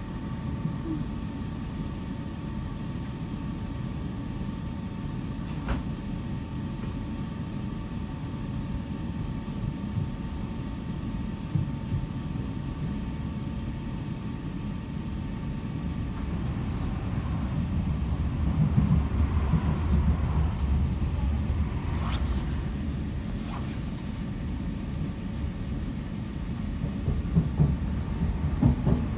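Moving passenger train heard from inside the carriage: a steady low rumble of wheels on the track with a faint steady whine, swelling louder for a few seconds past the middle and again near the end. A few sharp clicks sound over it.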